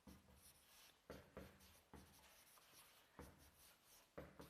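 Faint handwriting scratches: a few short, separate strokes at uneven intervals over near silence.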